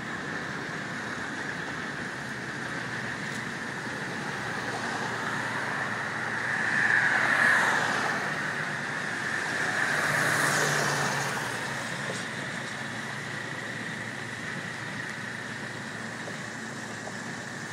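Road traffic: a vehicle passes about seven seconds in and another about ten seconds in, each swelling and fading, over a steady background hiss.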